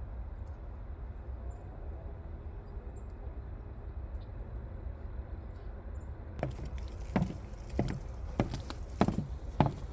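Footsteps of a person walking start about six seconds in, about one step every half second or so, over a low steady rumble.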